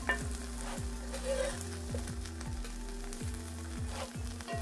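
Besan-coated eggplant slices sizzling in shallow oil in a cast-iron skillet, nearly done, with a metal spatula scraping and clicking against the pan as the slices are turned.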